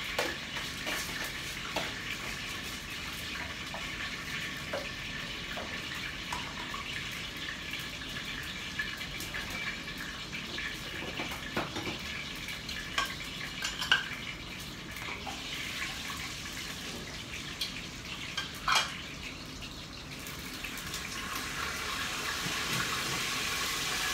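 Hot oil sizzling steadily in a steel pot as a tempering of curry leaves, cumin, nigella seeds, whole red chillies and mustard seeds fries, with scattered clicks and knocks of utensils and spice jars. The sizzle grows louder over the last few seconds.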